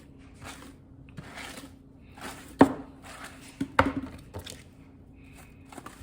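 A brush and comb dragged through a wet, shampooed wig in a series of short swishing strokes, with two sharp knocks, the loudest sounds, a little past halfway. A faint steady hum runs underneath.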